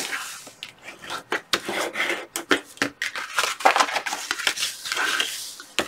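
Manila file-folder cardstock being handled and folded along its score lines: a string of short crisp rustles, creases and taps of the stiff paper.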